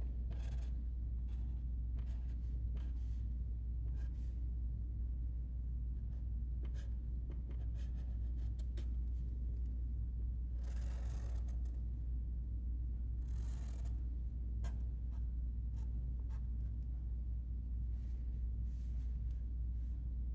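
Permanent marker scratching on paper as a bird's beak and outline are drawn and traced, in short strokes with two longer strokes about ten and thirteen seconds in, over a steady low hum.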